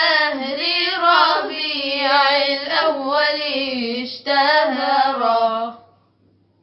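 A young woman's solo voice singing the closing phrase of an Arabic madih, a devotional hymn in praise of the Prophet. The phrase is long and ornamented, with a wavering pitch, and it fades out about six seconds in.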